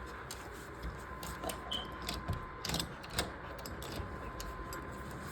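Faint, irregular small clicks and rustles, like handling noise, over a faint steady high-pitched tone.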